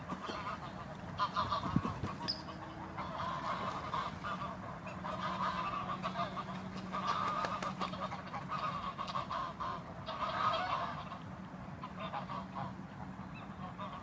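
Greylag geese honking, call after call in loose groups with short pauses between, over a steady low hum.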